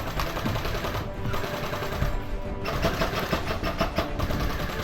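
Airsoft guns firing rapid full-auto bursts, a fast rattling string of shots that grows denser and sharper in the second half.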